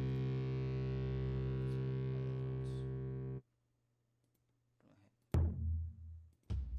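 Cinematic sound-effect samples from an intro library: a steady, held drone that cuts off suddenly, then after a short silence a sudden hit with a low boom about five seconds in, and another hit starting near the end.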